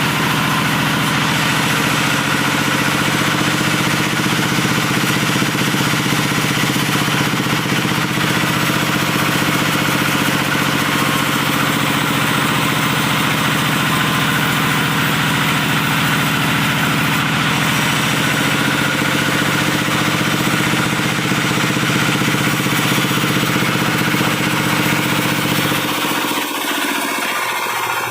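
Stationary diesel engine of a wood sawmill running steadily with a constant hum. Near the end the low hum drops away abruptly and the sound thins out.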